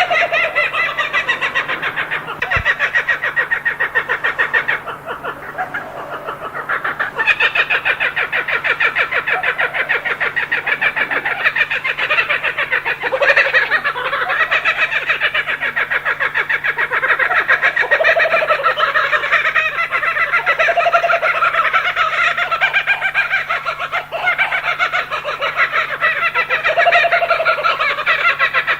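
Kookaburras calling: a steady stream of fast, chattering, laughing calls that rise and fall in pitch, easing off briefly about five seconds in.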